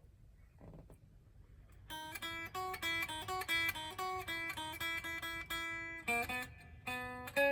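Gibson 1959 Les Paul Standard Murphy Lab reissue electric guitar on its neck pickup, played with a clean sound. After about two seconds of near silence, a quick run of single picked notes; a short break about six seconds in, and the line picks up again.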